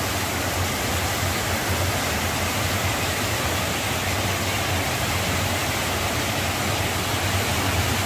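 Mountain stream rushing over boulders in small cascades: a steady, even rush of water.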